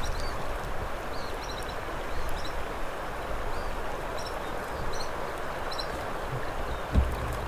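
Outdoor ambience: a steady rushing hiss with a rumble of wind on the microphone, and small birds chirping now and then. A single dull thump near the end.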